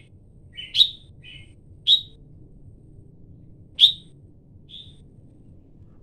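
Red-whiskered bulbul calling: three short, loud, sharp notes about one to two seconds apart, with a few softer chirps between them.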